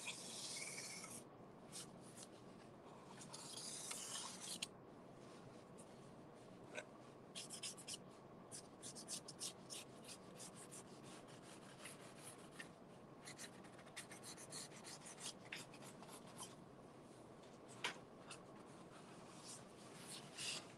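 Faint strokes of a Sharpie marker's broad side on corrugated cardboard: two longer drawn strokes in the first five seconds, then a run of many short, quick strokes.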